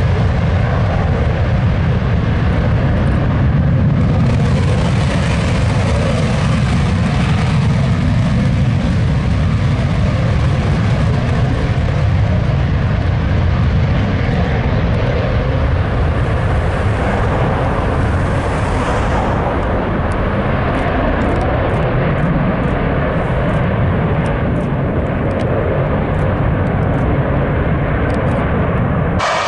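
Single-engine F-16 fighter taking off in afterburner: loud, continuous jet noise through the takeoff roll and climb-out. The high hiss fades after about twenty seconds as the jet climbs away, leaving a deep rumble.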